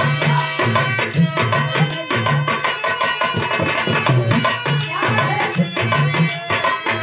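Live folk music accompanying a birha song: a hand drum keeps a steady beat under a melody.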